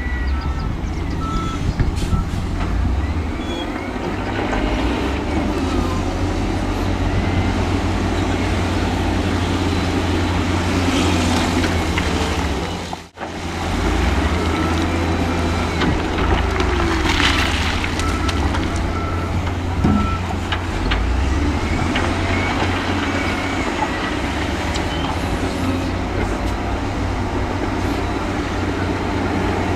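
Heavy diesel earthmoving machinery running with a deep engine rumble, with a reversing alarm beeping in short evenly spaced beeps near the start and again about two-thirds of the way through. The sound drops out briefly about halfway through.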